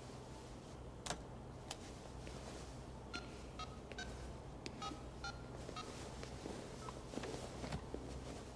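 Phone keypad beeping as a number is dialled: about seven short key tones in quick succession, after two sharp clicks.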